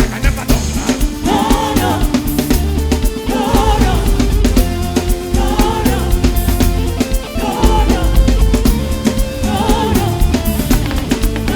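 Gospel music with a singing voice over a full drum kit and a pulsing bass line.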